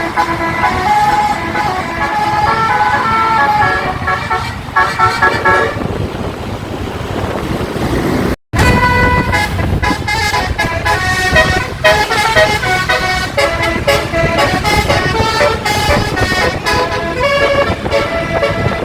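A 12-note basuri musical bus horn (telolet) playing a tune, its notes stepping from pitch to pitch with several tones sounding together. The sound drops out for a moment just past eight seconds, then resumes.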